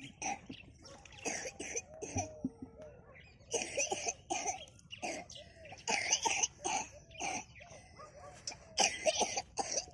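Goat kids giving a run of short, rough calls and snorts, some with brief wavering cries.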